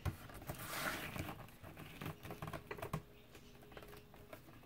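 Cereal-box cardboard being cut on a sliding paper trimmer: a scraping slide of the blade through the card about half a second in, then light taps and rustles as the card and trimmer are handled.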